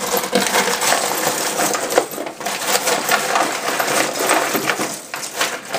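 Loose small electronic parts clattering and rattling against each other in a cardboard box as a hand rummages through them: a dense run of small clicks and clinks.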